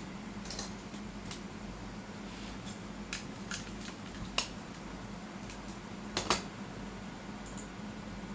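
A few scattered sharp clicks, the loudest a close pair about six seconds in, over a steady low hum.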